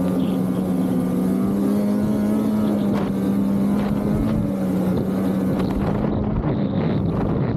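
Polaris 850 Assault snowmobile's two-stroke 850 engine running at a steady speed on the trail, easing off slightly just past halfway, with wind noise.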